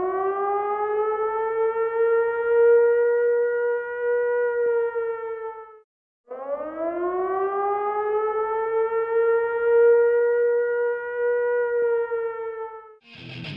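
A siren wailing twice: each wail winds up from a low pitch, holds steady for several seconds, then sags a little and stops abruptly. Loud electric guitar music cuts in near the end.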